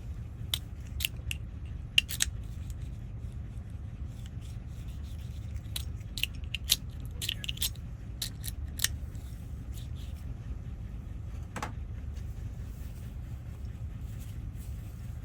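Scattered small clicks and snaps of a car door lock cylinder and its parts being handled and fitted back together, over a steady low hum.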